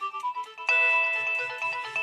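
Nokia 6030 polyphonic ringtones: one synthesized melody trails off, and about two-thirds of a second in a louder new tune starts abruptly with a busy melody over a bass line.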